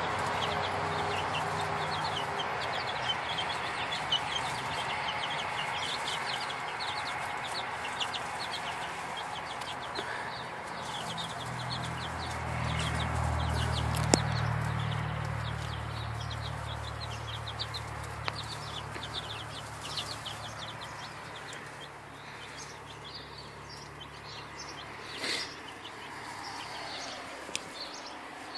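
Young chicks peeping and cheeping over and over, with soft clucks, as they forage in straw and grass.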